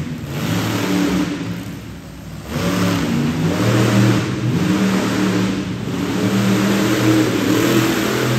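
Monster truck engine revving hard, easing off briefly about two seconds in, then opening up again and held high, its pitch rising and falling with the throttle.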